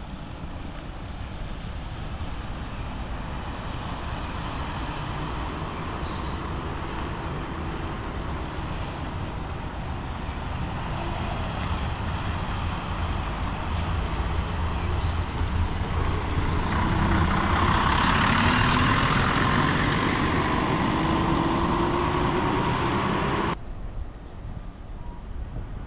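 City buses' diesel engines running and driving past. About two-thirds of the way through, one bus comes close and pulls away, its engine note rising as it accelerates. Then the sound cuts off suddenly, leaving fainter traffic and wind.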